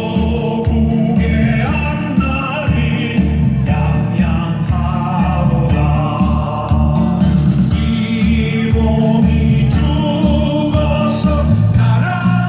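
Music with a group of voices singing over a steady, driving beat.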